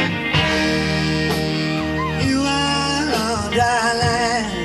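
A live rock band playing an instrumental passage with electric guitar, a held melody line wavering in pitch over the last second and a half.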